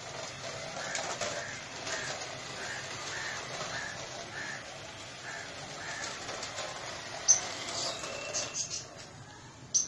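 A bird calling in a run of short repeated notes, about two a second, over a steady background hiss. A few sharp clicks come near the end.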